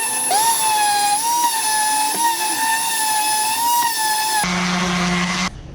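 Small high-speed power tool motor running with a steady whine, its pitch dipping briefly several times as if under load. About four and a half seconds in it changes to a lower hum with hiss, which cuts off suddenly about a second later.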